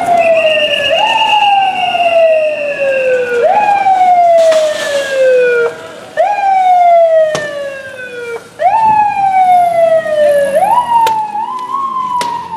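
Siren of a Carabineros armored riot-control vehicle wailing: each cycle rises quickly and then falls slowly, repeating about every two and a half seconds. A steady high tone sounds over the first few seconds, and two sharp cracks cut in later.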